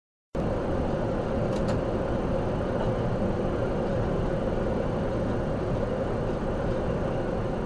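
Steady road and engine noise inside a car cruising at about 60 mph, starting abruptly just after the beginning, with a faint click about a second and a half in.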